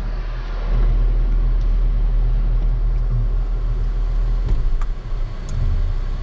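Steady low rumble of a car's engine and running noise heard inside the cabin, with a few faint clicks about two-thirds of the way through.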